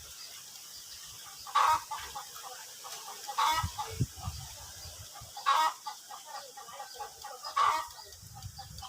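A bird calling over and over: four short calls spaced about two seconds apart.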